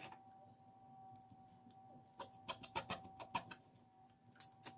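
Metal forks tearing cooked chicken breast apart on a plastic cutting board: quiet at first, then from about halfway a run of faint, irregular clicks and scrapes as the tines hit the board.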